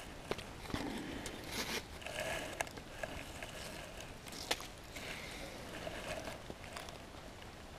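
Trail-camera mounting strap being wrapped around a tree trunk and worked through its buckle: rustling of webbing and clothing with scattered clicks and scrapes, the sharpest click about four and a half seconds in.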